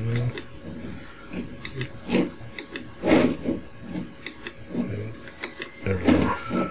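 Irregular clicks and rubbing handling noises, louder about three seconds in, with brief low murmurs near the start and near the end.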